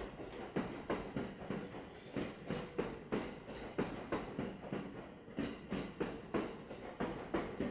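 E231-series electric commuter train's wheels clattering over rail joints: a quick, uneven run of sharp clacks, two or three a second.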